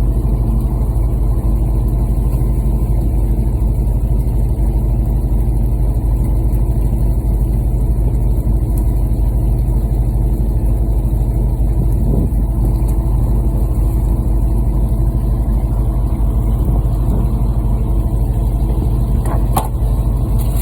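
Fishing boat's engine running steadily under way, a loud, even low hum with no change in speed.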